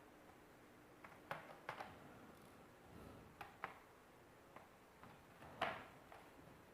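Faint, scattered clicks and taps of a laptop's plastic case parts being handled and fitted back together, about seven in all, the loudest about five and a half seconds in.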